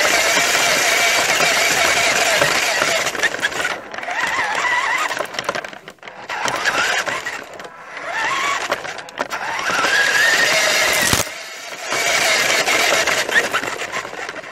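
Electric motor and gearbox of a Nikko radio-controlled toy dump truck whining as it drives, its pitch rising and falling with the throttle and dropping away briefly several times, over a rattly noise of the truck rolling. A sharp knock comes a little after eleven seconds.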